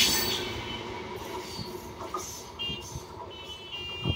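Rumble and clatter of a passing Rajdhani Express train, fading fast as its last coaches pull away. A few short high beeping tones follow near the end.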